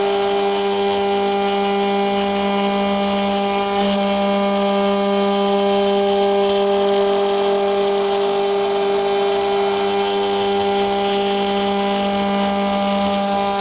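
CNC router spindle milling aluminium: a loud, steady, high-pitched whine that holds the same pitch throughout, with the cutter chattering in the metal.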